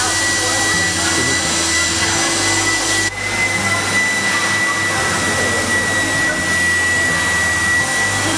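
Build-A-Bear stuffing machine's blower running steadily: a constant rushing of air with a thin steady whine, briefly dipping about three seconds in.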